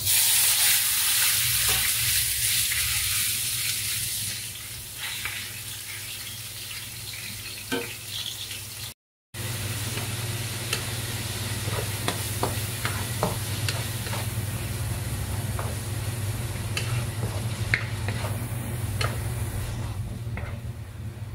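Chopped meat frying in hot oil in a pan: a loud sizzle for the first few seconds that settles to a quieter steady sizzle, with a spatula stirring and clicking against the pan.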